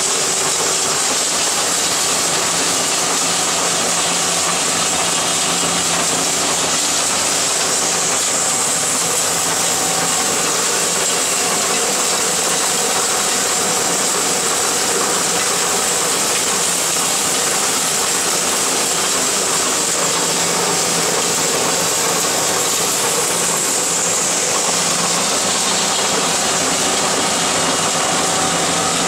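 Trommel screen running steadily: its electric drive motors hum, the mesh drum turns, and soil sifts through the screen and pours off the discharge conveyor. The result is an even mechanical noise with a hiss and no breaks.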